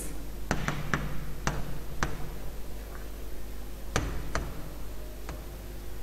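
Stylus tapping and clicking on a tablet surface while handwriting, about eight sharp, irregularly spaced ticks over a faint steady hum.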